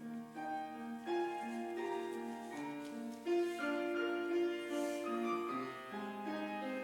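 Piano playing a slow, melodic introduction to a choir anthem, with notes held and overlapping.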